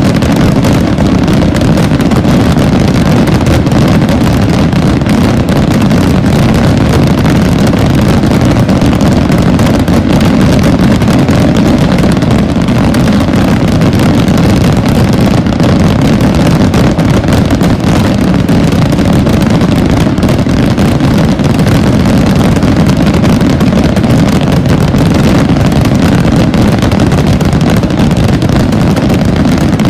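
A huge barrage of fireworks rockets (voladores) bursting without pause, so dense that the bangs run together into one continuous, loud rumble with crackling on top.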